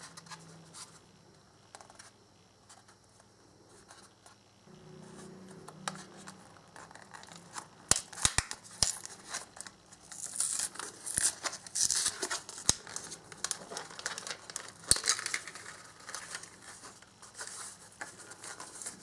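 Clear plastic blister pack and its card backing being pulled apart by hand: sharp snaps, then a run of crinkling and tearing plastic as the blister comes away from the card. The first several seconds are quiet apart from a faint hum.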